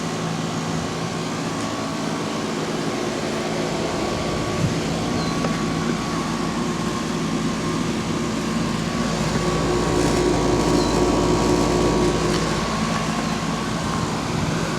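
Lennox Merit series 13ACX central air conditioner condenser unit running: a steady whir with a steady hum. A low rumble swells in about halfway through and fades again a little before the end.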